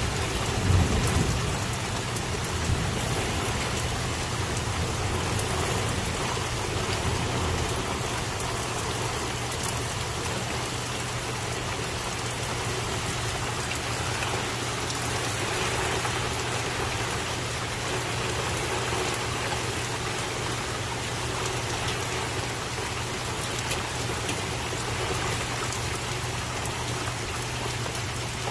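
Steady rain falling, with a low rumble of thunder in the first couple of seconds.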